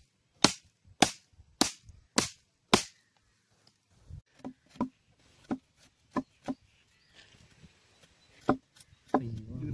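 A large machete-type blade chopping into a wooden stick: five sharp chops about twice a second, then a run of about eight lighter cuts, and one more chop near the end.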